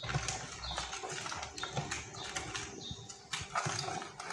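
A bare hand mixes pieces of salted fish in a dark, wet spice mixture in a plastic bowl, making irregular soft wet knocks and rubbing.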